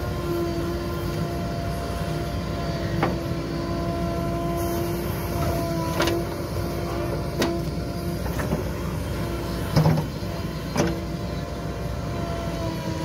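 JCB 3DX backhoe loader's diesel engine running steadily under hydraulic load, with a held whine. Sharp clunks of the digging bucket and arm come through it several times, the loudest, a double knock, about ten seconds in.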